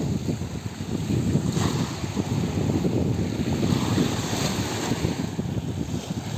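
Wind buffeting the microphone over choppy sea waves washing against a concrete seawall, with two brief louder washes of surf.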